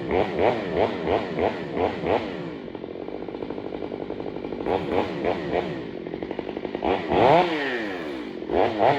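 Stihl MS 500i fuel-injected two-stroke chainsaw revved in quick throttle blips, about two or three a second. It drops to idle for a couple of seconds, then revs again, with one longer rev rising and falling about two-thirds of the way through.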